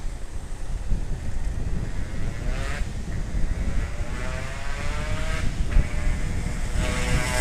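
Motorcycle ridden at speed: wind buffeting the microphone and road rumble, with an engine note that rises steadily in pitch from about a third of the way in as the bike accelerates.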